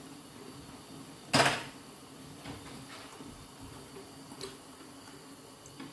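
Handling noise from the recording phone being picked up and moved: one sharp knock about a second in, then a few faint taps and clicks, over a low steady hum.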